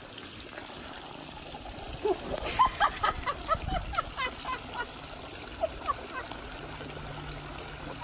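Steady rush of running water, with a string of short, quick chirps from about two to six seconds in.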